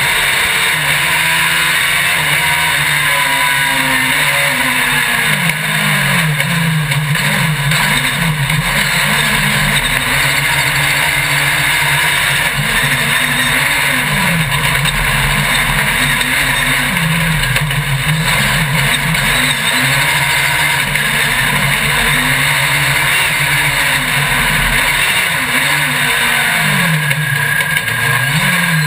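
Onboard sound of a small racing vehicle's engine, its pitch rising and falling again and again as it accelerates and slows, under a constant rush of wind and road noise.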